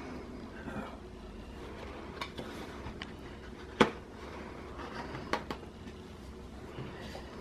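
Quiet room with a few short sharp clicks and light paper handling as the pages of a spiral-bound wall calendar are handled and turned; the loudest click comes just before the middle, with two more close together about a second and a half later.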